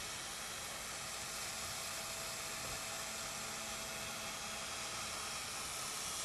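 A 12 V cordless drill spinning a foam polishing pad loaded with rubbing compound over a plastic headlight lens: a steady, even hiss with a faint whine.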